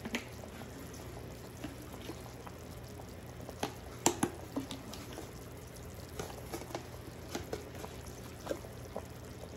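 Pot of chicken soup simmering on the stove: scattered bubbling pops and clicks over a low steady hum, with a couple of sharper clicks about four seconds in.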